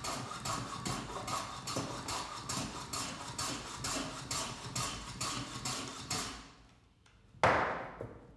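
Metal bench plane taking quick, rhythmic strokes, about three a second, across the end grain of a board clamped in a vise, shaving off the excess down to the line. The strokes stop about six seconds in, and a single loud knock follows about a second later.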